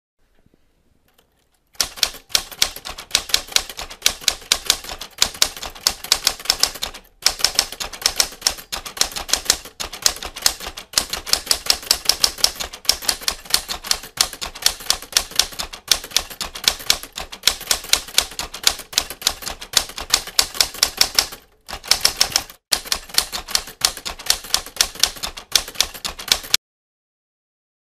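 Typewriter keys striking in fast, continuous typing, several keystrokes a second, broken by a few brief pauses. It starts about two seconds in and stops about a second before the end.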